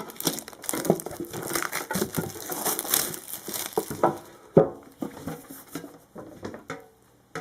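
Plastic packaging crinkling and rustling as it is handled and pulled off, with one sharp clack about four and a half seconds in; the handling then dies down.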